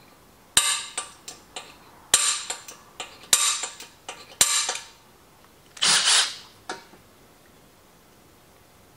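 Center punch marking a hole in the steel rear mounting tab of a motorcycle gas tank: four sharp metallic clicks about a second apart, with lighter clicks between them, then a brief rasp about six seconds in.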